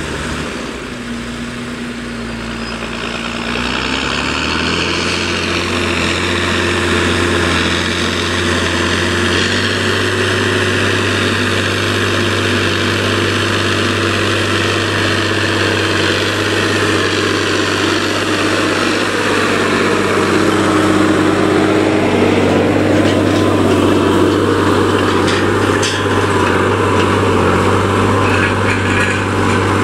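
Massey Ferguson 6480 tractor's six-cylinder diesel engine running hard as the tractor drags a seven-shank subsoiler through the soil. The engine note climbs and gets louder in the first few seconds, then holds steady. A few knocks come near the end.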